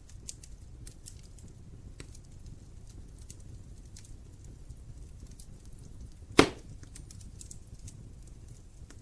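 Wood fire burning in a fireplace: a low steady rumble with scattered small crackles, and one sharp loud pop from the burning logs about six seconds in.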